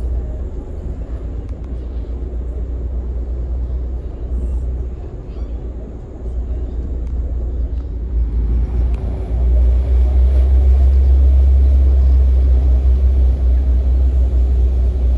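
RiverCat-class ferry's engines running with a steady low rumble, growing louder about nine seconds in as the ferry gets underway.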